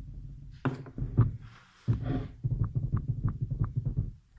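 Irregular knocks and clicks of small scooter variator parts being handled and set down, over a low rumble. About one and a half seconds in there is a brief scraping hiss.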